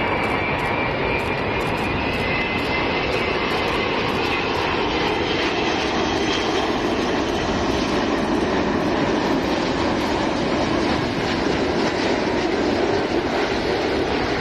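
Airbus A380 jet airliner passing low on landing approach: its four engines give a steady rush with a high whine that fades and drops a little in pitch over the first few seconds, and a deeper rumble that grows stronger in the second half.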